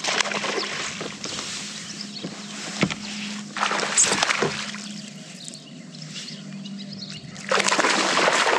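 Water splashing and sloshing around a fishing kayak in three bursts, over a steady low hum.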